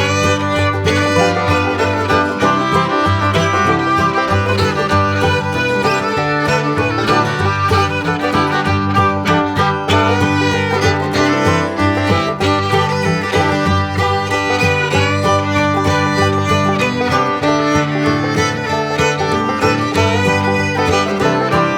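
Background bluegrass-style instrumental music with fiddle, banjo and guitar over a steady beat.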